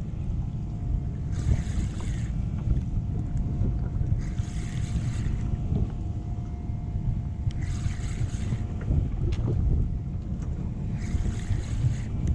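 Wind rumbling on the microphone aboard a small boat at sea, with a hissing wash of water against the hull about every three seconds and a few small clicks.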